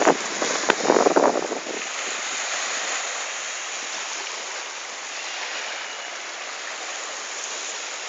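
Small sea waves washing up onto a sand beach, a steady fizzing wash of surf at the shoreline. Gusts of wind buffet the microphone for the first second or two.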